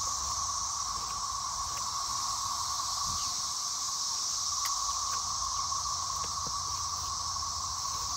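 Cicada chorus: a steady, unbroken drone with a lower hum and a higher hiss layered together.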